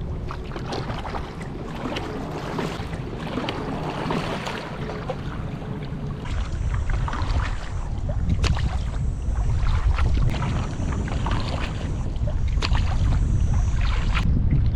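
Kayak paddling: short splashes and knocks of paddle strokes in the water, over wind rumbling on the microphone that grows heavier about six seconds in.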